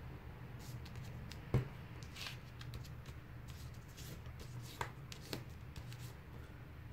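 A square of origami paper being folded and creased by hand: soft rustling and scraping as fingers press and run along the folds, with a few sharp taps, the loudest about one and a half seconds in.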